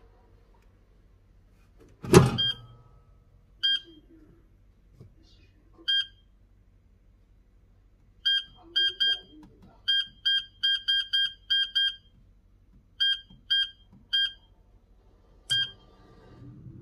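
Air fryer basket drawer pushed shut with a loud clunk, then a string of short electronic beeps from the fryer's control panel as its settings are pressed in: single beeps at first, then quick runs of several a second.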